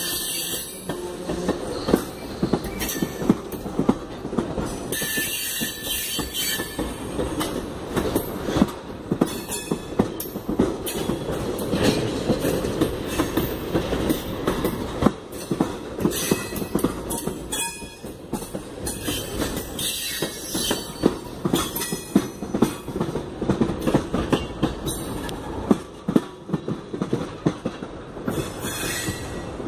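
Railroad tank cars rolling past at close range, steel wheels knocking and clacking over rail joints in many irregular sharp knocks over a steady rumble, with patches of high hissing now and then.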